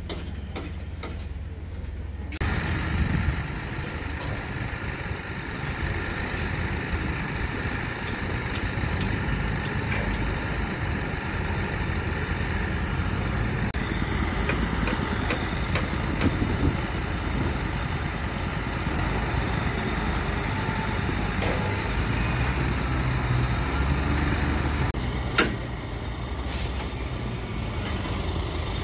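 A wheel loader's diesel engine running while it digs, with a steady high whine over it. The sound changes suddenly a couple of seconds in and again near the end.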